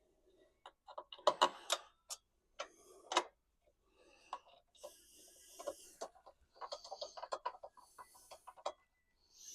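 Hand work on car dashboard parts: runs of quick ticking clicks and knocks from tools and plastic and metal pieces being handled, with a brief hiss about five seconds in.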